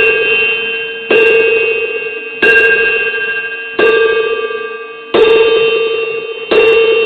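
A bell tolling slowly and evenly, a stroke about every one and a half seconds, each ringing out and fading before the next.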